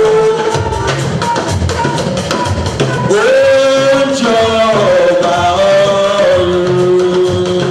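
Church choir singing through microphones with drum accompaniment; a lead voice holds long notes and slides up into a new phrase about three seconds in.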